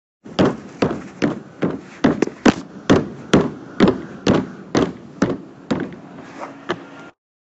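Repeated hollow knocks on a plastic playground block, about two a second and slightly uneven, each with a short ring, stopping abruptly about seven seconds in.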